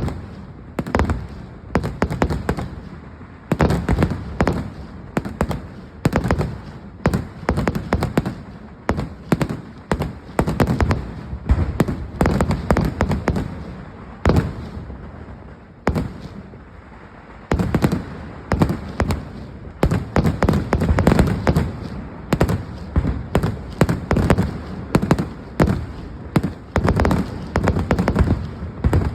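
Festival fireworks barrage: rapid strings of loud, overlapping firecracker bangs with a crackle between them, thinning out for a few seconds a little past halfway before building back up.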